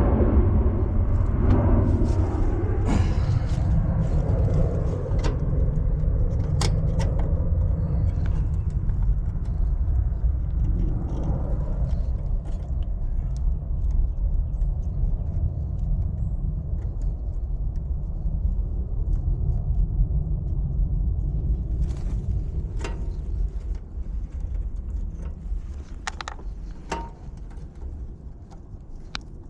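Steady low rumble with a few sharp clicks and knocks, easing off over the last few seconds.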